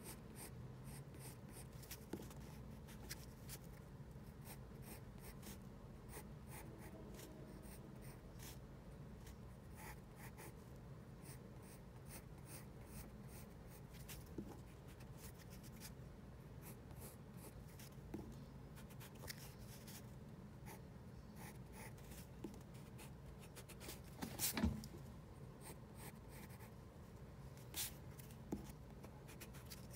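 Faint pencil scratching on paper in short sketching strokes, with a louder knock about 25 seconds in and a couple of sharper clicks near the end.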